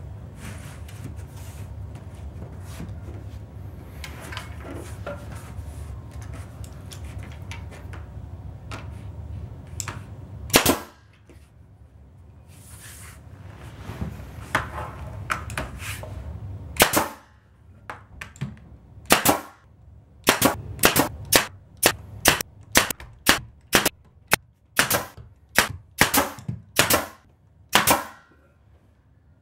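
Porter-Cable pneumatic nail gun firing finishing nails through beadboard wainscoting into the wall. It fires a few single shots, then a quick run of about fifteen shots at roughly two a second over the last ten seconds. The shots follow a low steady hum that stops about ten seconds in.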